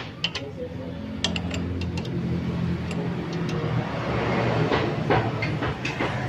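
Steel combination wrench clicking and clinking against a nut as it is turned on a flange stud of a Honda GX390 engine, in irregular short metal ticks, over a steady low hum.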